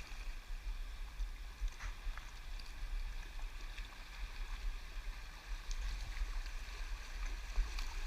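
River water flowing around a kayak, with wind buffeting the microphone as a low rumble and a few faint clicks.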